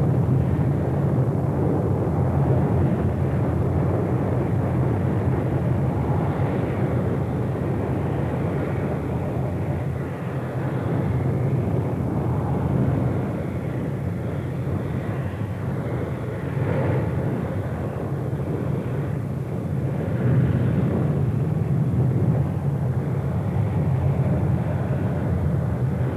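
Lava fountain erupting in Kilauea's summit crater: a steady, rumbling roar of gas-driven spatter that swells now and then.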